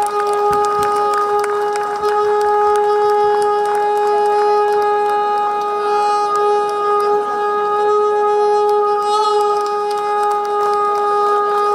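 Shankhnaad, a conch-style call blown through cupped hands into a microphone: one long, loud, steady note held at a single pitch without a break, wavering slightly about nine seconds in.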